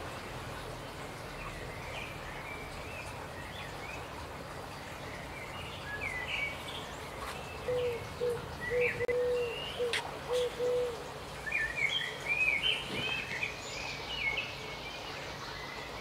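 Garden birds chirping and twittering in a tree, a scatter of short high calls that grows busiest about twelve seconds in. In the middle comes a short run of low, even hooting notes, and there is one sharp click about ten seconds in.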